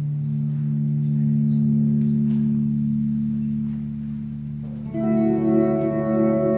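Live instrumental music: a steady low drone of held tones, joined about five seconds in by a brighter ringing tone that starts suddenly and rings on.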